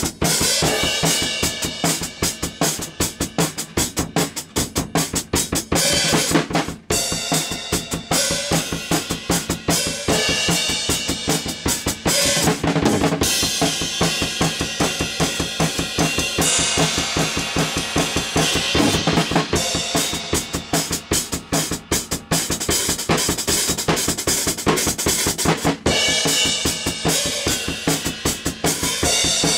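Acoustic drum kit played in a steady, driving groove: bass drum, snare and cymbals struck in a dense, regular beat.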